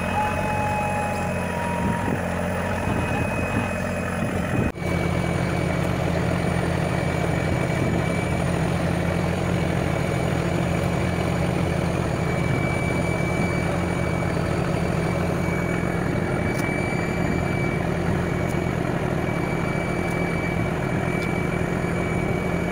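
Fishing boat's engine running steadily, a constant low drone. There is a momentary break a little under five seconds in.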